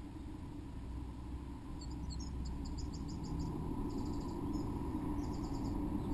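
Small birds calling in three quick runs of rapid high chirps, over a steady low background rumble.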